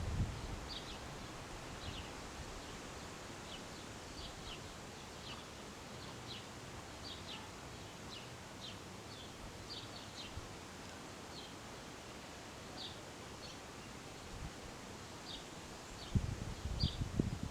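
Outdoor wind making a steady rustling hiss, with small birds giving short high chirps over and over. Gusts rumble on the microphone right at the start and again near the end.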